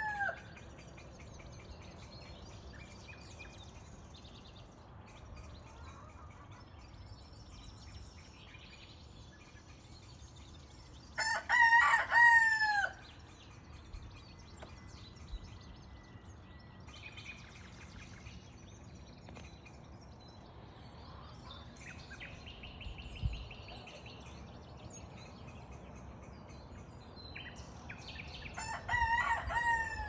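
A rooster crowing: one full cock-a-doodle-doo about a third of the way in and another starting near the end. Small birds chirp and trill faintly in between.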